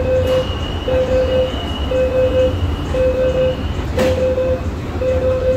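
Metro train door-closing warning: a beeping tone repeating about once a second while the saloon doors slide shut, with a sharp knock about four seconds in as they close. The train's low equipment hum runs underneath.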